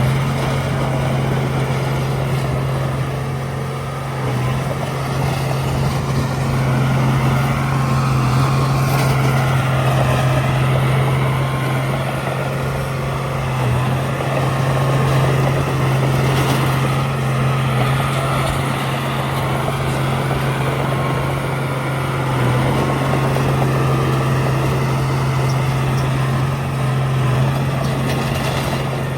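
Komatsu D31A bulldozer's diesel engine running steadily while working, a strong low hum with a wavering higher whine above it.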